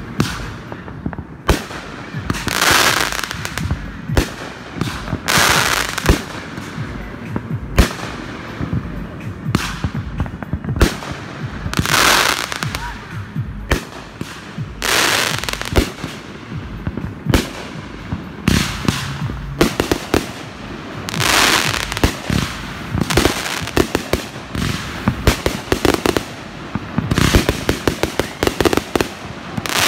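Aerial firework shells bursting overhead: a string of sharp bangs, several followed by about a second of hiss, the bangs coming thick and fast near the end.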